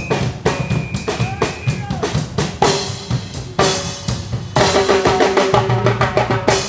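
Live drumming by a group of percussionists on a boat: hand drums and a drum kit played in a fast, steady rhythm, with some held pitched notes over the beat.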